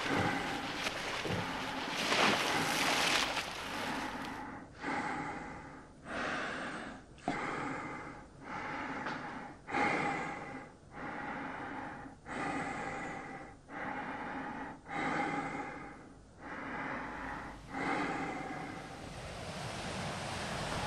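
Heavy, rhythmic human breathing: about a dozen sharp breaths, roughly one a second, each fading before the next. It follows a few seconds of rain-and-thunder-like noise, and a steady sea-surf wash rises near the end.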